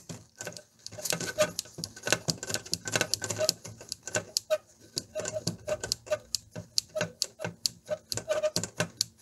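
Volume potentiometer of a Pioneer A-119 amplifier being turned back and forth by hand, giving a rapid, uneven series of small clicks, about five a second. The pot is being worked to spread the rinse liquid through its track after contact cleaning for scratchy controls.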